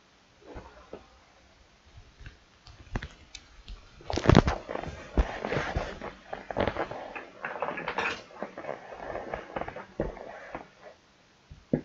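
Irregular clicks, taps and rustling, sparse at first and busiest from about four seconds in.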